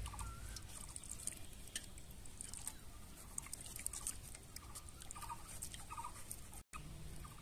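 Knife cutting notches into a watermelon rind, faint small clicks and crunches, with a few short faint bird calls in the background.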